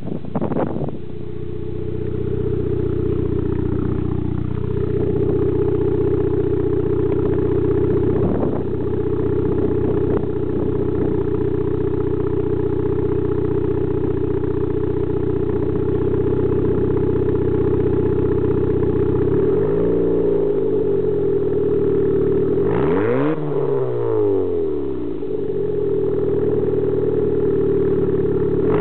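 Turbocharged 420A four-cylinder engine with 272 cams and a catless downpipe into a 3-inch catback, running at a steady speed. Near the end it is briefly revved up and let back down, twice.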